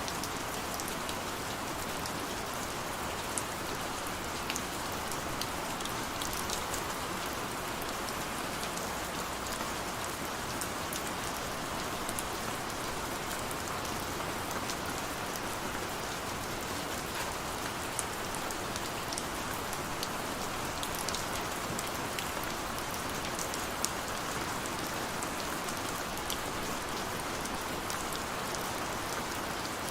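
Steady gentle rain falling on surfaces, an even hiss with scattered individual drops ticking through it.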